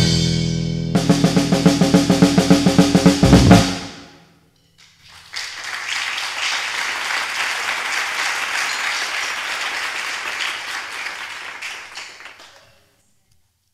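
Drum kit played hard: a fast run of strokes around the drums for a couple of seconds, ending on a loud final hit that rings out. Then applause for about seven seconds, fading away near the end.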